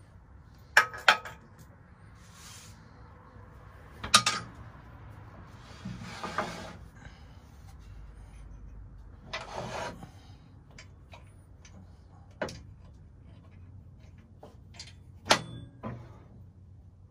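Handling noises on a turned oak piece at the lathe: a few sharp wooden knocks and clunks, two of them about a second in, and several brushing rubs, each about a second long, as a hand smooths across the wood where the nub was cut away.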